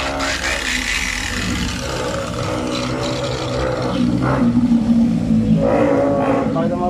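Handheld angle grinder with a wool buffing pad, running free off the stone, with a steady motor whine whose pitch shifts slightly. A rushing hiss sits over it for the first two seconds. This is the buffing stage of polishing a granite top.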